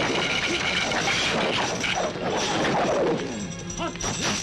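Action-film fight sound effects: crashing, smashing impacts with some shattering, over a music score.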